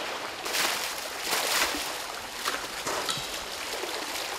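Buckets of stream water splashing and pouring over an elephant lying in a shallow stream, in several surges over a steady background of moving water.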